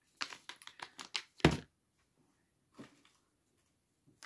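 Small product packets being handled and set down: a quick run of clicks and rustles, with one louder knock about one and a half seconds in and a softer one near three seconds.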